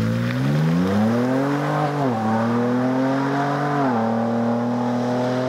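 A 2023 Ford Ranger Raptor's 3.0-litre twin-turbo V6 accelerates away. The engine note rises steadily and drops as the automatic shifts up, about two seconds in and again about four seconds in.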